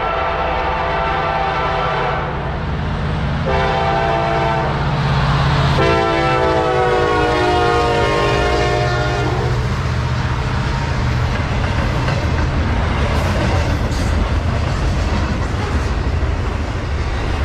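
A Norfolk Southern freight train passing close by, led by an EMD SD70ACe diesel locomotive. The air horn sounds in three blasts, and the last, long blast drops in pitch as the locomotive goes by, over the drone of the diesel engines. From about ten seconds in, only the rumble and clatter of the intermodal cars rolling past remains.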